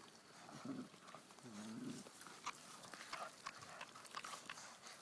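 Bullmastiff puppies eating raw meat: faint chewing and smacking clicks, with a short pitched puppy vocalization about one and a half seconds in.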